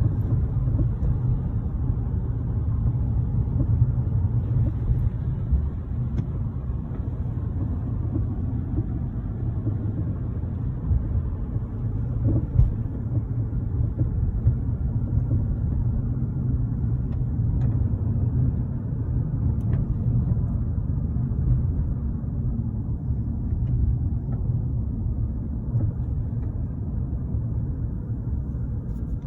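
Car driving at a steady pace: a continuous low rumble of road and engine noise.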